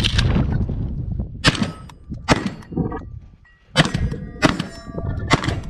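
A rumble of handling noise, then five sharp metallic clangs, each leaving a short ring, spaced about half a second to a second and a half apart.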